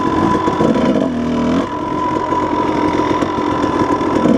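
Dirt bike engine running, its pitch dropping for about half a second around a second in and then picking back up, with a steady high whine over it.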